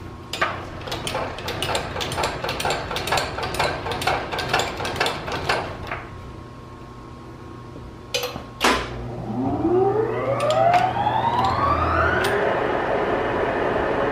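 A quick run of metallic clicks, about four a second, for around five seconds as the machine is set up. Then two sharp clunks, and the horizontal boring mill's spindle drive spins up: a whine that rises in pitch for a few seconds, then levels off into a steady running sound.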